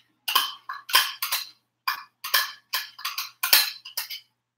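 Spoon scraping and clinking against a measuring cup while thick mayonnaise is scooped and levelled. It comes as a quick, irregular run of short strokes.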